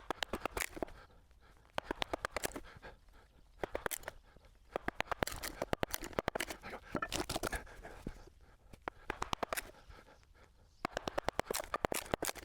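Cedar wood crackling and tearing as a block is split apart into shakes. It comes in repeated short bursts of sharp crackles, one to two seconds apart.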